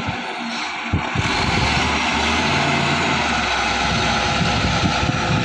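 Diesel engine of heavy road-building machinery running steadily close by, with two short knocks in the first second.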